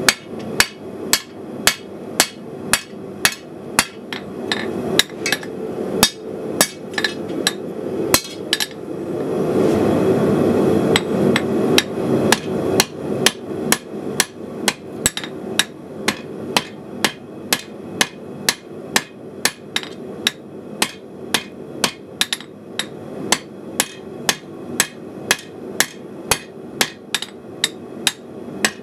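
Hand hammer striking hot steel on an anvil, about two blows a second, each with a bright ringing clang. About nine seconds in, the blows pause for a few seconds under a steady low rushing noise, then start again at the same pace.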